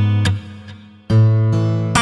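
Background music of an acoustic guitar strumming chords. The sound dips briefly after the first chord, and a new chord is struck about a second in.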